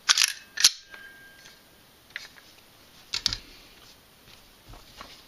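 Metal clicks and clinks of AR-15 rifle parts being handled during assembly: the bolt carrier group going into the upper receiver and the coiled buffer spring being picked up. Two sharp clicks in the first second, then a few lighter clinks spread through the rest.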